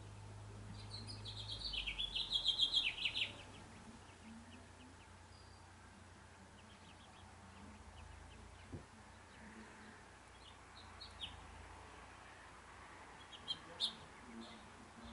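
Osprey calling: a quick run of high whistled chirps that grows louder for about two seconds, followed later by a few scattered fainter chirps.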